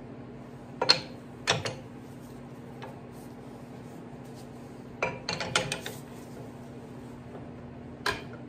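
Steel parts and tools clinking and clanking as they are handled while setting up a workpiece for milling: two sharp clanks about a second in, a quick run of clinks about five seconds in, and one more near the end, over a steady low hum.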